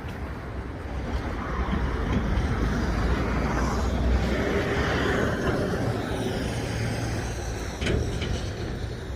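A motor vehicle passing close by: engine rumble and road noise swell over the first few seconds and ease off, leaving a steady low engine hum.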